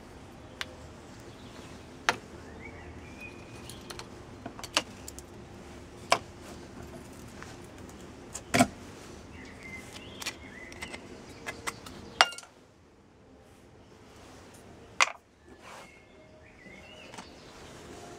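Scattered sharp clicks and knocks of small hard orgonite pieces and metal containers being handled, clinked together and set down, with a light rattle of metal shavings. The steady background noise drops away about two-thirds of the way through.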